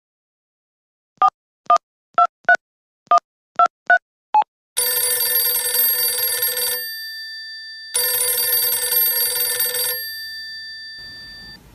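Telephone keypad tones as a number is dialled: eight short two-note beeps at varying pitches. Then the phone rings twice, each ring about two seconds long.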